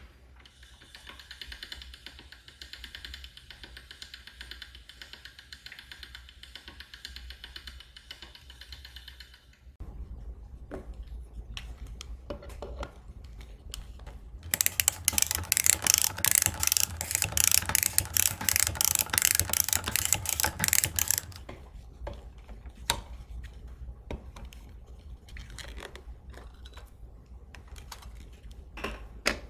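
A hand-cranked pasta machine's rollers turning with a steady hiss. Later, a red manual side-cutting can opener is turned around a tin can, with a loud run of even clicks at about six a second for several seconds.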